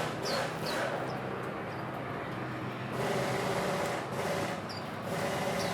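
Steady hum of road traffic, with a few brief high bird chirps scattered over it.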